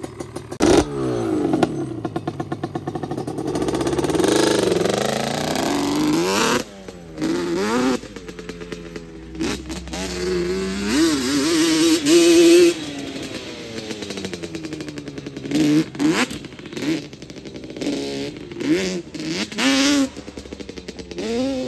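Yamaha Banshee 350's twin-cylinder two-stroke engine revving up and down over and over as the quad is ridden hard around a dirt track, run with its air box off.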